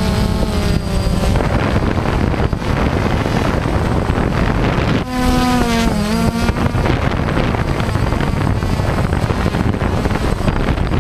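DJI Phantom quadcopter's motors and propellers buzzing in flight, heard from a camera slung just beneath it, with wind noise on the microphone. The whine shifts in pitch as the motors change speed, most clearly about five seconds in.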